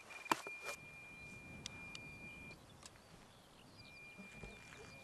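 A single hammer blow about a third of a second in, ending a series of hammer strikes, then a few faint taps. A thin steady high whine runs over quiet outdoor background, stopping partway through and returning near the end.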